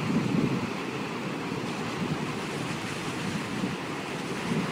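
Steady rushing noise like surf or wind, swelling slightly in loudness now and then, with no voice or tune in it.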